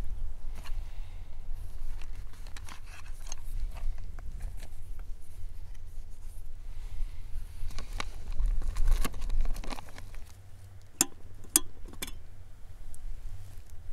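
Small camping gear being handled: scattered clicks, taps and crinkles, with a few sharper clicks near the end, over a low steady rumble.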